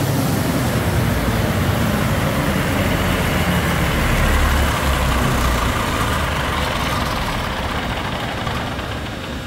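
Cummins LTA diesel engine on a standby generator set running steadily as it warms up. It is a dense low rumble with a broad rushing noise on top, easing slightly near the end.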